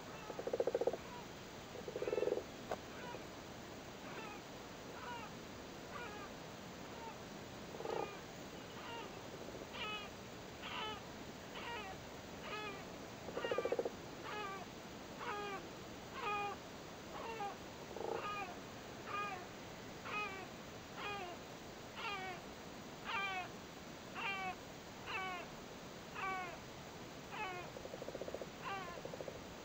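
Common frogs giving short, low purring croaks every few seconds: males calling over their spawn in the breeding season. Through most of it a higher chirp that falls in pitch repeats about once a second.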